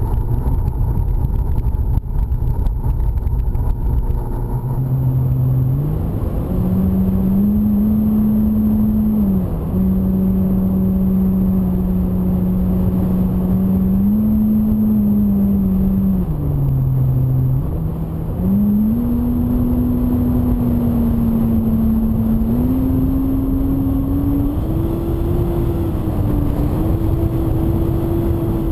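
Wind buffeting the onboard camera for the first few seconds. Then, about five seconds in, a model airplane's electric motor and propeller start to hum over steady wind noise. The pitch steps up and down with the throttle, drops around sixteen seconds in, and climbs higher again toward the end.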